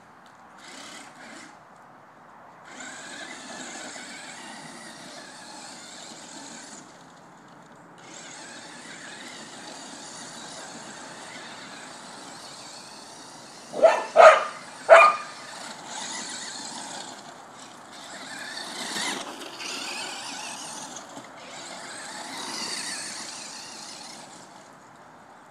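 Electric radio-controlled car (Duratrax Evader) whining as it drives in long bursts, breaking off briefly about 7 s and 21 s in, its pitch rising and falling with the throttle near the end. A dog barks three times in quick succession about halfway through, louder than the car.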